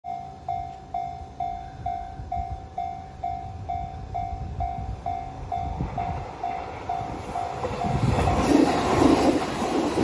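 Japanese level-crossing warning bell ringing a steady electronic ding a little over twice a second. From about seven and a half seconds in, an approaching electric train's rumble and rattling wheels build up, and they drown out the bell as the train runs onto the crossing.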